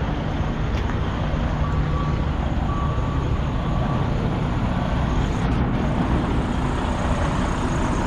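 Semi-truck engine running steadily, with a few short beeps at one pitch about two to four seconds in.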